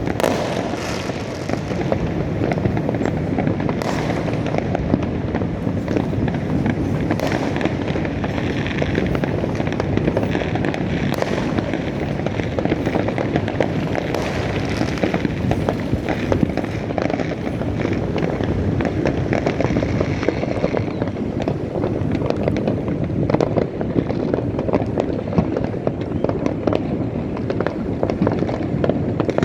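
New Year's Eve fireworks going off all at once across the city: a continuous dense crackle of many overlapping pops and bangs, with no pause.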